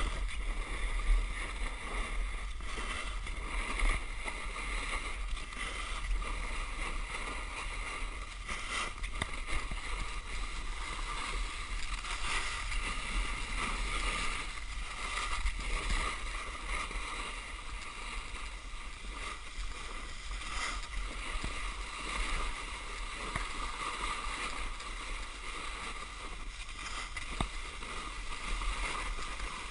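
Snowboard sliding and scraping over snow during a run: a steady rushing hiss with a few sharp knocks.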